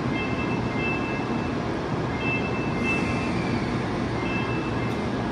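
Steady hum and whir of an N700 series Shinkansen train standing at the platform, its on-board equipment such as the air-conditioning and cooling fans running. Short, high electronic beeps sound on and off over it.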